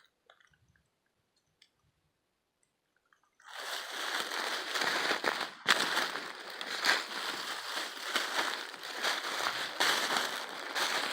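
Near silence for about three and a half seconds, then continuous crunching and crackling of brush, twigs and dry leaves, as of someone pushing through a thick thicket on foot.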